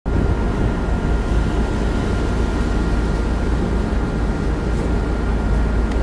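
Steady, loud low rumble aboard a Coast Guard medium endurance cutter underway at sea.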